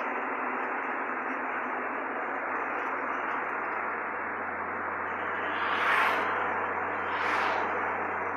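1968 Chevrolet Camaro cruising, heard from inside the cabin: steady engine hum and road noise, with two brief whooshes of passing traffic near the end.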